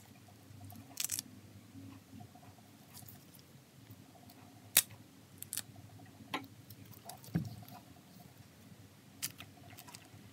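Ripe pineapple being pulled apart by hand: scattered sharp snaps and crackles as the fruitlet segments break away from the core and from each other, with one louder snap about halfway through.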